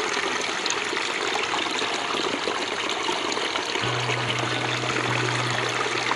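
Shallow stream water running over rocks, a steady rush of water. A steady low hum comes in about four seconds in.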